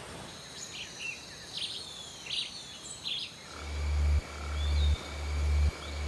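Rainforest ambience: birds chirping in short calls over a steady high insect-like drone. About halfway through, a deep, regular throbbing pulse sets in, about one beat every three-quarters of a second. Each beat swells and then stops sharply, and the pulse becomes the loudest sound.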